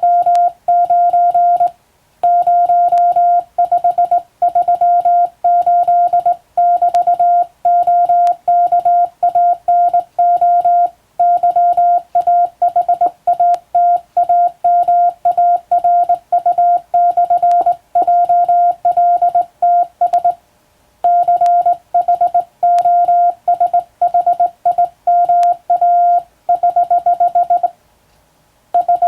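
Morse code sent by hand on a telegraph key, heard as a steady mid-pitched beep switched on and off into dots and dashes. A few short pauses fall between groups.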